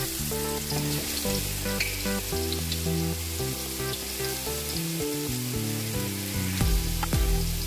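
Ginger garlic paste sizzling and spitting as it fries in hot oil in a large pot, with a few knocks near the end.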